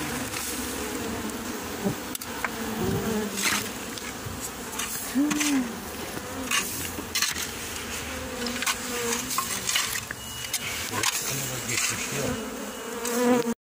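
Honey bees from a swarm buzzing around, single bees flying close past the microphone with humming tones that rise and fall. Short knocks and scrapes come through now and then.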